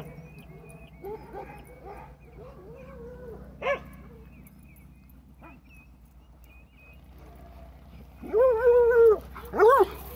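Dogs along a fence line giving faint pitched whines and yips, with one short sharp call a few seconds in. Near the end come two loud, drawn-out howls, the first held for about a second.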